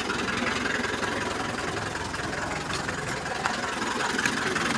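Yamaha RX-King 135 two-stroke single-cylinder motorcycle engine idling steadily, its exhaust giving a crisp, raspy note.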